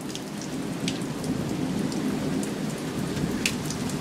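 Heavy rain pouring down steadily, with scattered individual drops ticking sharply close by.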